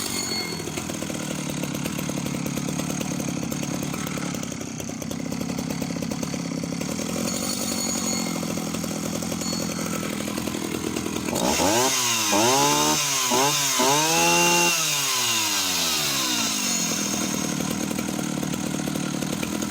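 Husqvarna L65 65cc two-stroke chainsaw engine idling steadily, then blipped several times about halfway through, going straight up to peak revs and straight back to idle with no hesitation, the sign of a healthy, well-tuned engine.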